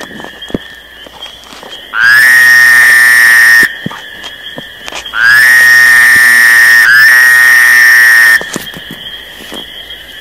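A loud, high-pitched whistle-like call, sounded three times. Each note slides up at the start and then holds one steady pitch for a second or two, and the last two notes run together.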